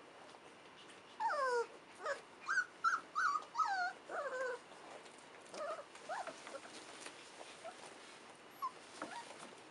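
Young golden retriever puppies squealing and whimpering while they play-fight. A quick run of about eight short, high squeals, each sliding down in pitch, comes between about one and four and a half seconds in, then a few fainter squeaks follow.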